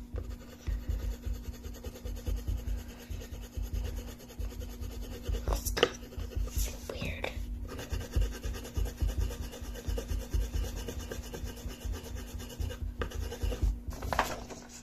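A coloring tool rubbing on paper in rapid, continuous back-and-forth strokes as a drawing is shaded in, with a couple of brief knocks.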